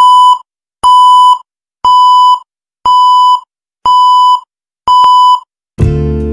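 Six identical electronic beeps, one a second, each about half a second long at the same steady pitch. Music comes in near the end.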